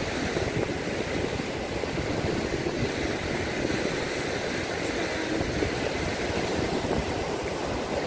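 Wind buffeting the microphone in a steady low rumble, over the noise of rough surf breaking against a sea wall.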